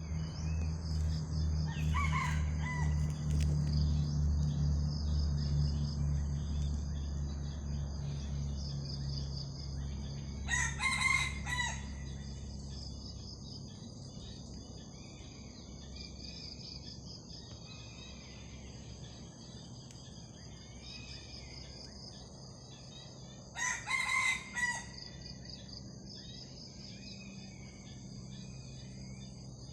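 Roosters crowing three times, each short crow about ten seconds apart, the crowing of birds answering each other in challenge. A steady high insect buzz runs underneath, and a low hum fades out about halfway through.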